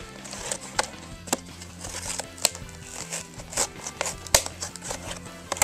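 Stiff clear plastic blister packaging being bent and pried open by hand, giving irregular sharp clicks and crackles.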